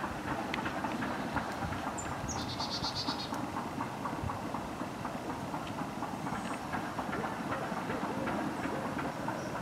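Wind buffeting the microphone and rustling vegetation, a steady rough rumble with fine crackling. A small bird gives one short, high, rapid trill about two seconds in.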